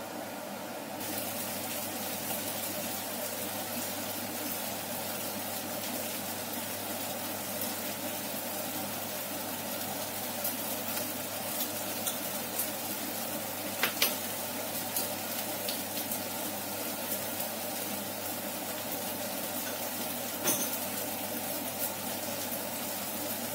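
Tomato soup boiling in a saucepan on a gas burner, a steady hiss. A couple of sharp knocks come about fourteen seconds in, with another near twenty seconds.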